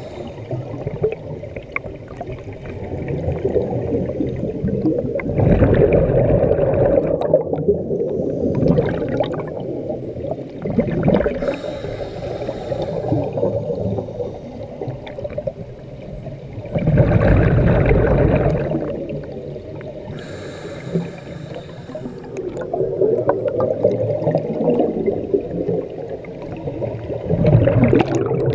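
Scuba diver breathing through a regulator underwater: short high hissing inhalations alternating with rumbling, bubbling exhalations, a few breaths several seconds apart.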